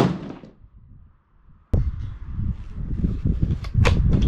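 A single shot from a 7mm hunting rifle fitted with a muzzle brake: a sharp crack that rings out and fades over about half a second. About two seconds in, a steady low rumbling noise starts suddenly, with a few sharp clicks near the end.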